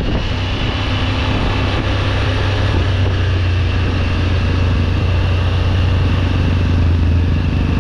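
2024 Triumph Tiger 900 GT Pro's three-cylinder engine running steadily under way, a constant low hum with a little rise in level near the end.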